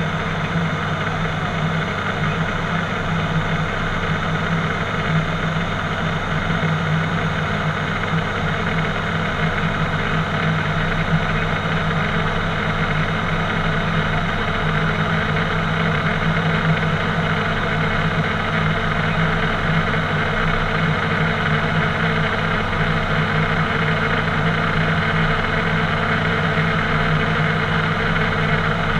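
ATR 72-600's Pratt & Whitney PW127 turboprop engines and propellers droning steadily in flight, heard inside the cockpit as a deep, even hum over a hiss of air.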